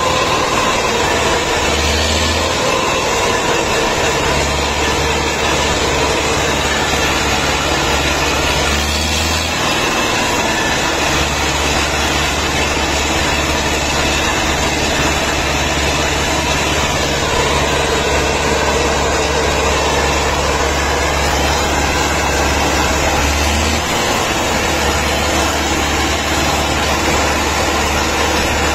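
Farm tractor engine running steadily under load while towing a heavily loaded log trailer. Its low, even note drops out briefly and comes back a few times.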